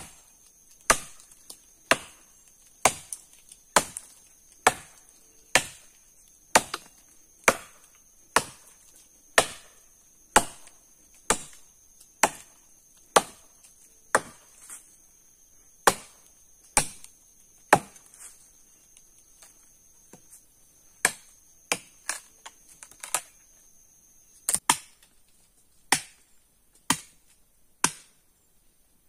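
Blade chopping into dry wood: sharp separate strikes about once a second, with a short pause about two-thirds through. A steady high insect drone runs behind the chopping and stops near the end.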